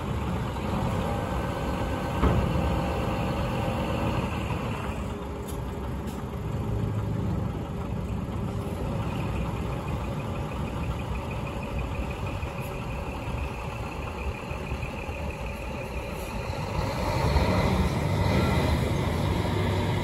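2008 Scania P380 8x4 dump truck's diesel engine idling steadily, then louder near the end as the truck pulls away. There is a single short knock about two seconds in.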